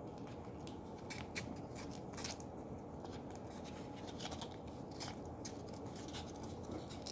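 Paper being rubbed and scraped against a DC magnetic contactor part to clean it: a run of short, irregular scratching strokes over a steady low background noise.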